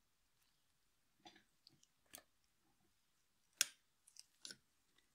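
Scattered faint clicks and small scrapes of pliers working a toothed retaining clamp onto a splined driveshaft against its center support bearing, with one sharper click about three and a half seconds in.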